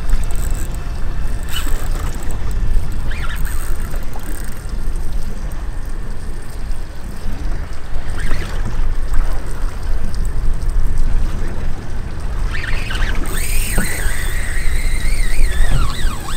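Steady low rumble of wind and water around a small fishing boat on open water. About thirteen seconds in, a wavering high tone rises and falls over it, like a distant siren.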